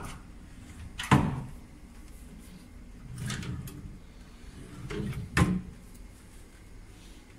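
Wooden wardrobe doors knocking and clunking as they are handled, in three sharp knocks: the loudest about a second in, the last about five seconds in, with softer rubbing between.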